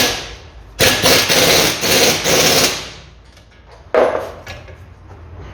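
Impact wrench hammering for about two seconds, then a short second burst about four seconds in, as it runs a driveshaft flange bolt tight against the gearbox output flange.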